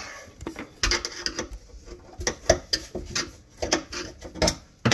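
Screwdriver and the metal parts of an old sink basket strainer clinking, knocking and scraping as the strainer's mounting hardware is worked loose: a run of irregular sharp knocks, loudest about two and a half seconds in.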